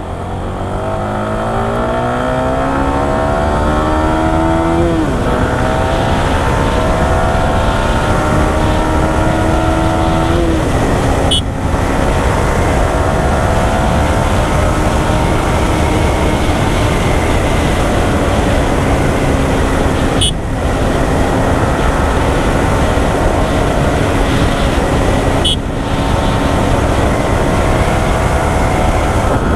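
Yamaha R15 V4's single-cylinder engine pulling away under acceleration. The revs climb and fall back at an upshift about five seconds in, climb again and fall at another upshift around ten seconds, then hold steady at cruising speed.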